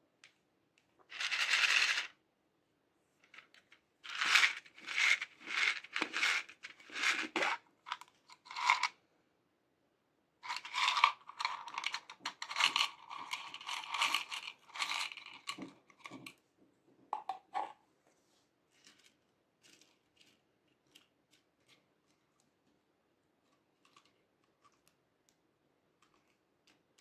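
Pink plastic toy capsule being handled and opened with a short crackle. Its small pink pieces rattle and clatter as they are shaken and poured out, with a longer run of rattling in the middle. The sound then thins to scattered soft ticks as the pieces are pressed into the slime.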